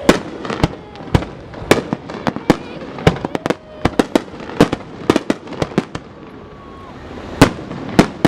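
Fireworks going off: a rapid, irregular string of sharp bangs and pops, some louder than others, with voices faintly heard between them.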